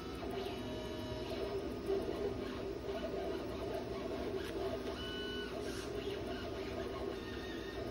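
Stencil brush scrubbing and dabbing paint over a stencil on the wooden top of a cable spool: a continuous, rhythmic scrubbing.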